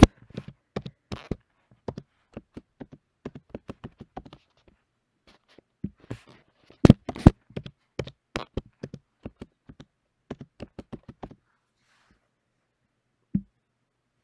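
Typing on a computer keyboard: an irregular run of key clicks with a few louder strikes about seven seconds in, stopping after about eleven seconds. A single click follows near the end.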